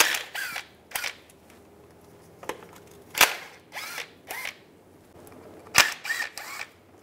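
Cordless electric ratchet running in a series of short bursts, each a quick whir with a click, as it backs out the bolts on a transmission oil pan.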